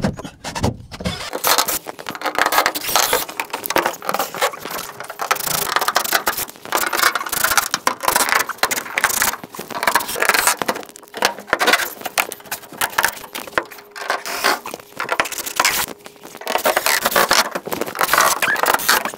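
Cordless DeWalt drill-driver running in repeated short bursts, backing out small trim-head screws that hold old wooden baseboard to steel studs.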